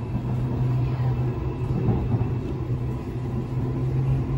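Steady low hum over a constant rumble inside the carriage of a Queensland Rail electric suburban train.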